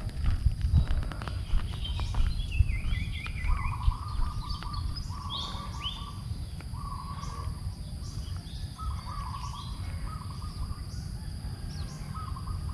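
Wild birds calling in short, buzzy chattering phrases about once a second, with higher notes above them, over a steady low rumble. A few sharp clicks come in the first few seconds.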